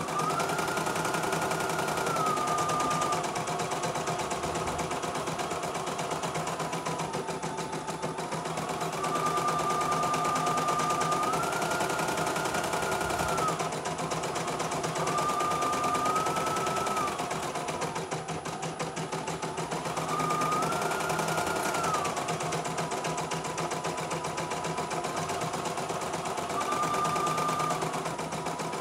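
CNY E900 portable embroidery machine stitching a design, its needle working at a rapid, steady rate while the motor's whine steps up and down in pitch every few seconds.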